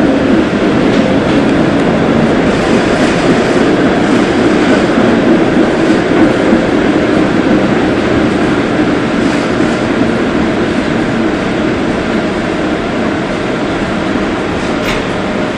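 Interior running noise of a PCC streetcar under way: a steady rumble of steel wheels on rail and running gear, easing slightly in loudness over the second half.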